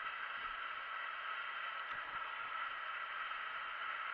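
Steady static-like hiss, even and unchanging.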